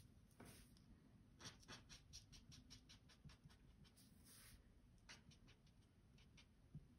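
Faint, quick light taps and flicks of a Stampin' Blends alcohol marker's fine tip on stamped cardstock while colouring in small flowers, in a run of several taps about a second and a half in and a shorter run about five seconds in.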